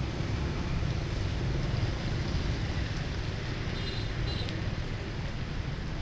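Steady wind buffeting the microphone over the low rumble of a vehicle riding through wet city traffic. A faint, brief high tone sounds about four seconds in.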